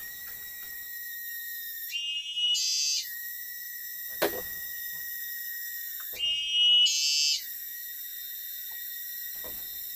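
Forest insects singing a steady, high-pitched drone that twice rises into a louder, higher buzzing phrase lasting about a second. A few soft knocks sound underneath.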